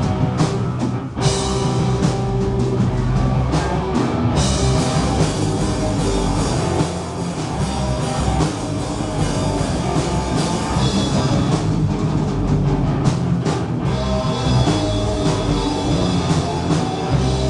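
Live punk rock band playing loud, with drum kit and electric guitars. Near the end the drums drop out and a low chord rings on.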